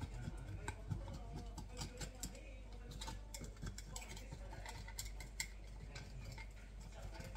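A table knife cutting baked basbousa (semolina cake) into pieces in a glass baking dish, the blade making light, irregular clicks and taps against the glass, several a second.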